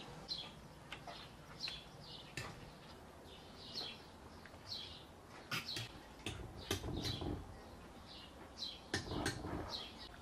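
A small bird chirping over and over, short falling chirps about once or twice a second, with a few sharp metallic clinks of a wire skimmer against the metal pot and tray, the loudest about halfway through and again near the end.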